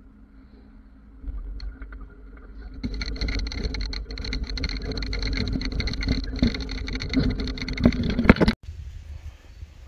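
Pickup truck towing a flatbed trailer: the engine runs, then the truck pulls away over rough gravel about three seconds in, and the trailer and load rattle and knock. The sound cuts off suddenly near the end.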